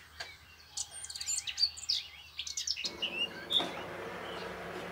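Small birds chirping: many short, high chirps and quick sweeps. A steady hiss joins in about three seconds in.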